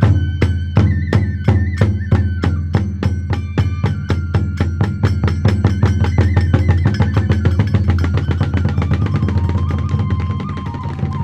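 Kagura festival music: taiko drum strokes speeding up into a rapid roll, over steady ringing metal tones, easing off near the end.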